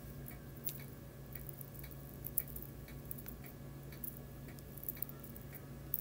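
Faint light ticks, about two or three a second, over a steady low room hum.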